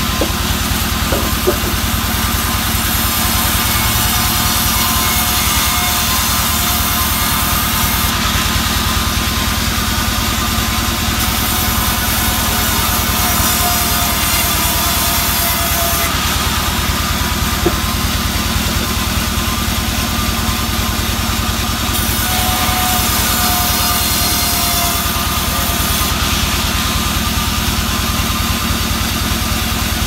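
Vertical band sawmill running steadily while it rips albasia boards into rafter battens. The cutting sound grows and fades in stretches of a few seconds as boards pass through the blade, over the constant hum of the machine.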